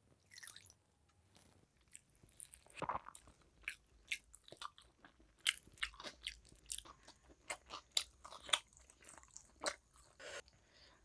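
Close-miked eating sounds of rice, curry and fried fish eaten by hand: scattered short wet clicks, lip smacks and chewing.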